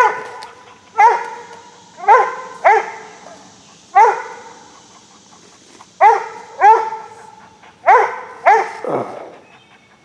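A cur squirrel dog barking treed at a squirrel up a tree: about nine sharp single barks at uneven spacing, each trailing off. Near the end comes one lower sound that falls in pitch.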